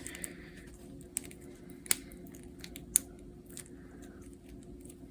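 A handful of short, sharp plastic clicks and taps as an action figure's shoulder and arm joints are moved, over a faint steady hum.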